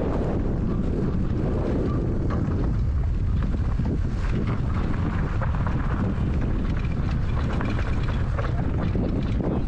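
Steady wind buffeting on the microphone of a moving enduro motorcycle, with the bike's engine running underneath.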